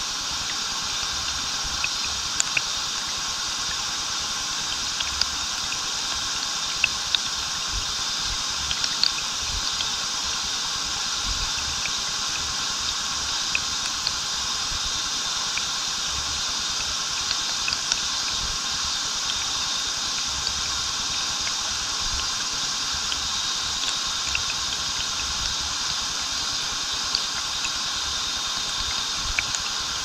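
A small waterfall pouring steadily into a pool, with water splashing in small sharp ticks. A steady buzz of cicadas runs over it.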